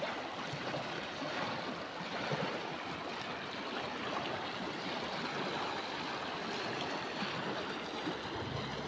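River water flowing and rippling close to the microphone: a steady, even rush of water.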